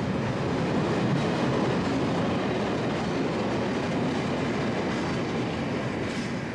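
Freight train wagons rolling past at close range: a steady rumble and rattle of wheels on the rails. The noise eases off near the end as the last wagon goes by.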